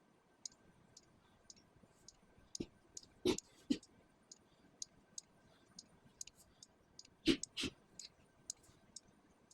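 Scattered light clicks and taps, irregularly spaced. Two louder pairs of clicks come about a third of the way in and again about three-quarters of the way in.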